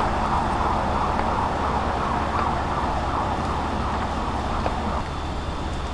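Steady hum of road traffic passing by, easing slightly about five seconds in.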